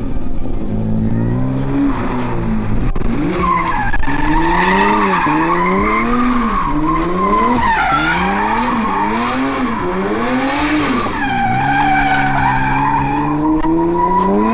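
1986 BMW 3-Series turbo drift car sliding sideways, its tyres squealing continuously. The engine revs climb at first, then swing up and down about once a second through the middle of the slide, and are held steadier near the end.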